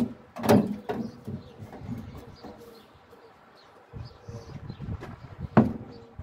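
Cut sheet-metal flap of a car body panel being bent and handled, with sharp metallic knocks at the start and about half a second in, then one hard knock near the end as a Flex cordless angle grinder is set down on the panel.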